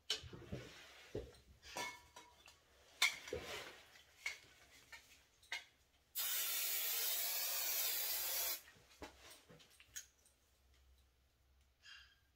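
An aerosol hair spray sprayed onto the hair in one steady hiss lasting about two and a half seconds, starting and stopping abruptly. Light handling clicks and rustles come before and after it.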